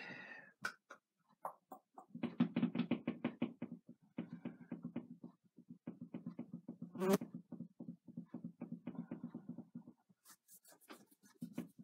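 Paintbrush working paint with quick, rhythmic strokes, many to the second, in runs of a few seconds, with one sharp click about seven seconds in.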